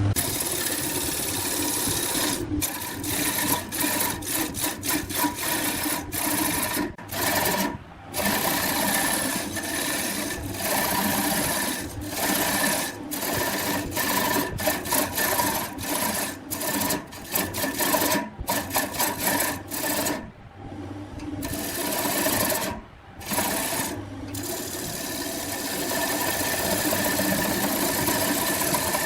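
Wood lathe running with a tool cutting or scraping the spinning wood: a steady motor hum under a continuous rasping noise that breaks off briefly many times.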